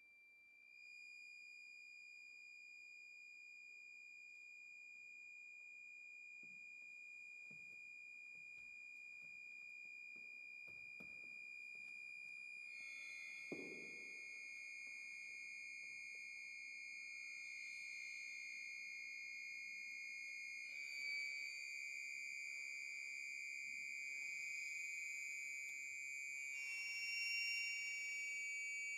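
Accordion holding a very high, soft note that comes in about a second in and slowly swells, with close neighbouring pitches sliding in against it later on. A short soft knock sounds about halfway through.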